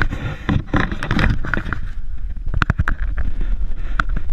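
Boat noise: twin outboard motors running under wind buffeting the microphone, with a few sharp clicks about two and a half seconds in.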